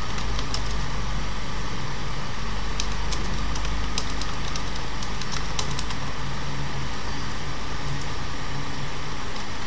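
Computer keyboard keys clicking sporadically, a cluster of sharp clicks in the middle as a name is typed. Under them runs a steady low hum and hiss of background noise.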